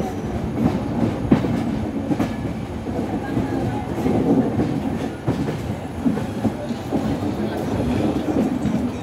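Indian Railways passenger train running, heard from beside a coach: a continuous wheel-and-rail rumble with irregular clicks as the wheels cross rail joints.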